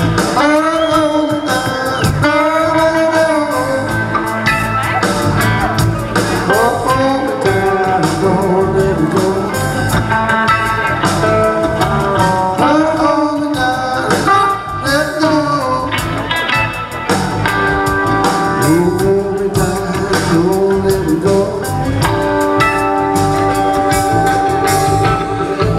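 Blues-rock band music: electric guitar and a bending lead melody over a steady low beat.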